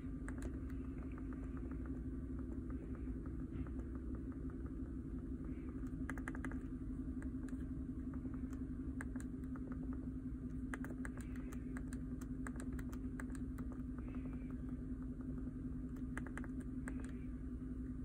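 A 5.3 L V8 (LC9) in a 2013 GMC Sierra idling steadily shortly after a start, running rich because the ECM is misreading the fuel's alcohol content. Scattered light clicks of scan-tool buttons come over the hum as items are selected.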